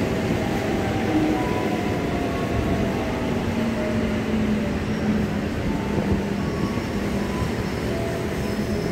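JR 205 series electric commuter train running alongside the platform and slowing, with a steady rumble of wheels on rail and a faint motor whine that drifts slightly lower.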